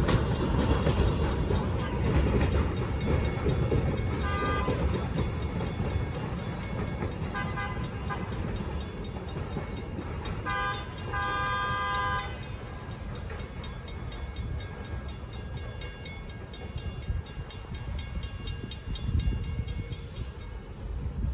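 Narrow-gauge diesel locomotive DH5 sounding its horn over the low rumble of the departing train: short blasts about four, seven and ten seconds in, then a longer blast of about a second. The rumble fades as the train pulls away.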